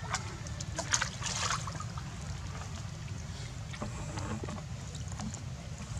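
Water splashing and sloshing as young macaques swim and play in a shallow pond, with the biggest burst of splashing about a second in and smaller splashes around four seconds in, over a steady low rumble.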